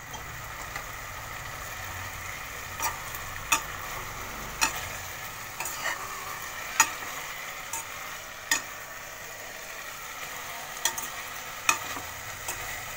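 Chicken pieces sizzling steadily in a pan as a metal spoon stirs them, the spoon clicking and scraping against the pan about once a second. The chicken is simmering in the water and oil it has released, nearly cooked through.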